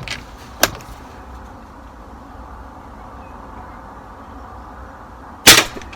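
A single air rifle shot about five and a half seconds in, sharp and the loudest sound here. A brief click sounds about half a second in.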